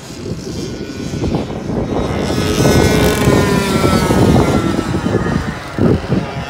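Racing go-karts' two-stroke engines running at high revs as they pass the trackside, growing louder to a peak about halfway and then easing off as they move away.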